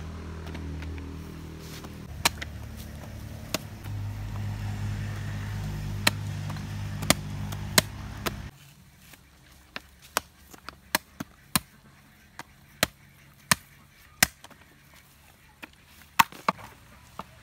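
Long knife chopping and prying fresh coconut meat from the shell: a string of sharp, irregular knocks, coming more often in the second half.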